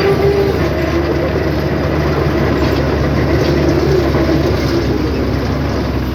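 Bulldozer's diesel engine running steadily under load, with a wavering whine and a light metallic clatter from the steel tracks.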